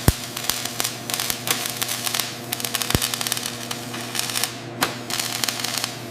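A steady electrical hum with several even tones, under a crackling hiss full of irregular sharp clicks.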